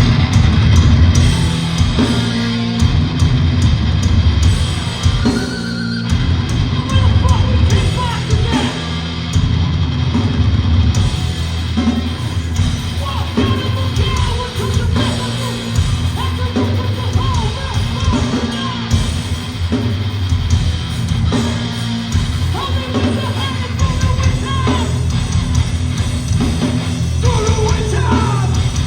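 A hardcore band playing live and loud: heavy distorted guitars, bass and drums, with shouted vocals.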